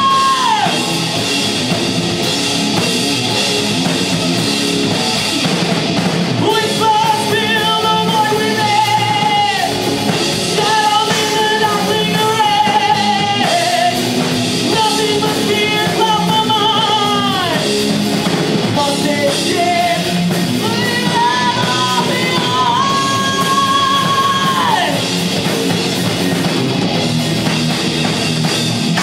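Live metal band playing: electric guitars, bass guitar and drum kit under a singer holding long notes, several of which slide down in pitch at their ends.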